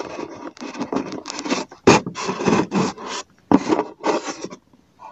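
Scraping and rubbing handling noises in a series of bursts, each half a second to a second long, stopping shortly before the end.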